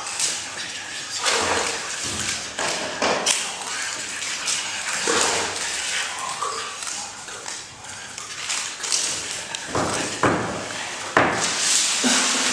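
A man's raw, wordless vocal noises, in short breathy bursts, some voiced, mixed with wet slaps and knocks of clay and paint being worked over his head and body.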